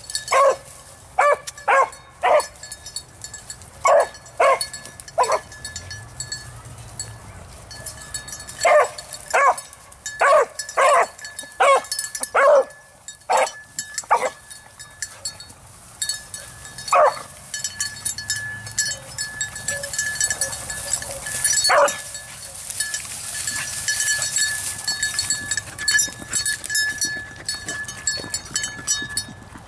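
Beagle baying on a rabbit trail: loud, short barks in irregular bunches, coming thick through the first half, then only a couple of single barks later on.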